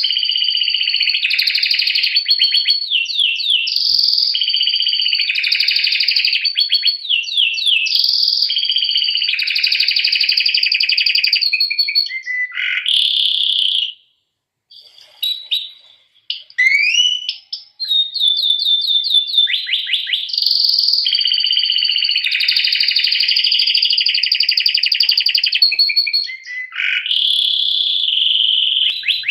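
A domestic canary singing: long, rapid trills and rolling phrases, with a short pause about halfway before the song picks up again.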